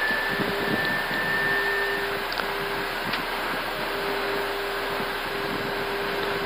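Airbus A320 flight deck noise on approach with the landing gear down: a steady rush of air with a constant hum running through it, and a few faint clicks.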